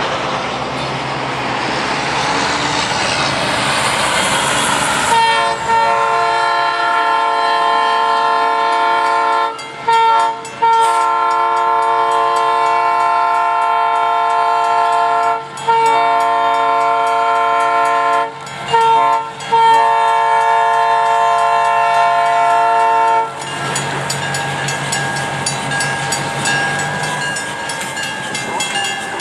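EMD GP10 diesel locomotive's multi-note air horn sounding the grade-crossing signal in a series of long blasts broken by two short ones. The horn stops near the end, leaving the locomotive's diesel engine running and wheels clattering on the rails as it reaches the crossing.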